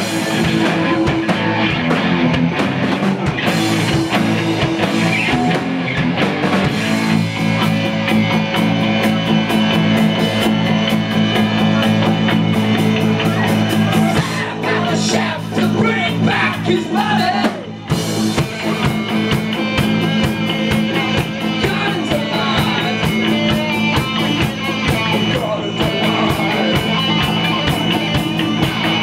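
Live rock band playing: electric guitars, electric bass and a drum kit.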